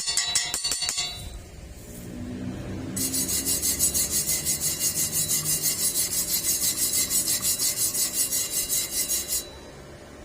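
Rhythmic rasping strokes, about four a second, starting about three seconds in and stopping suddenly near the end, with the tail of percussive music at the start.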